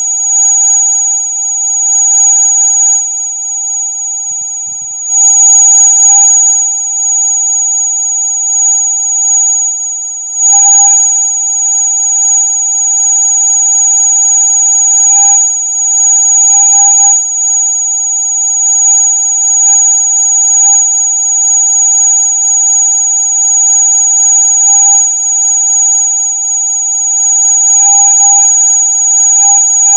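Electronic rat-repellent sound: several steady electronic tones held without a break, a shrill high whistle over a lower steady tone, with no rhythm.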